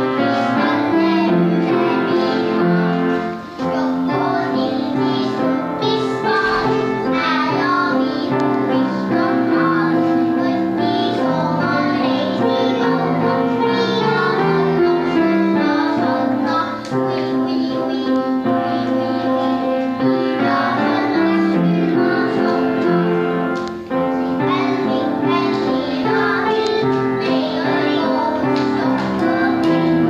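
A small group of young children singing a song together over an instrumental accompaniment, with a few brief breaks between phrases.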